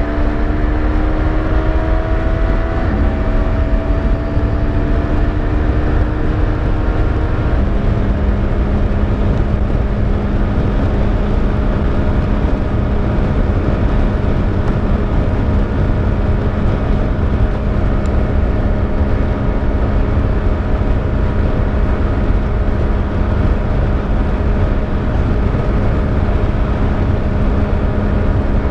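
Yamaha Niken GT's 847 cc three-cylinder engine pulling hard at speed. Its pitch climbs slowly and drops suddenly twice, at about 3 and 7 seconds in, as it shifts up, then holds a steady drone. Heavy wind rush on the helmet microphone runs underneath.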